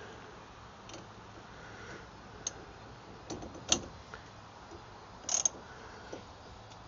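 A few light, scattered metal clicks and taps from a claw-type puller's claws being set onto a seized boat steering wheel. The sharpest click comes a little past halfway, with a quick double click later.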